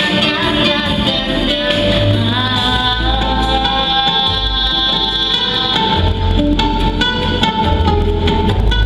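A pop song: a girl's solo voice singing over a backing track with guitar and drums, holding a long note partway through.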